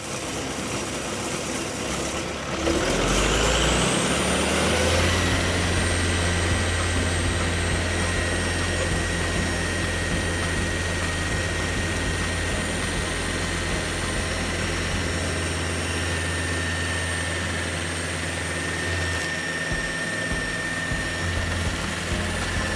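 Bandit SG-75 stump grinder running with its cutter wheel spinning. About three seconds in it revs up, then runs steadily at full speed with a constant high whine.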